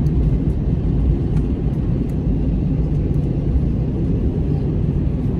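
Steady low rumble inside the cabin of an Airbus A321 taxiing, its CFM56 turbofan engines running at idle.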